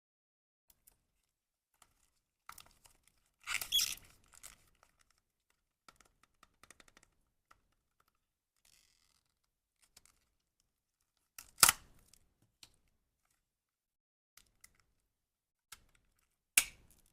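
Packaging being handled and torn open by hand: a short noisy tearing burst about three and a half seconds in, scattered small ticks, and two sharp snaps or clicks, one near the middle and one near the end.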